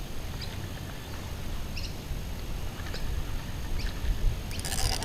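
Wind rumbling steadily on the microphone on open water, with a few faint, short, high chirps and a brief hiss near the end.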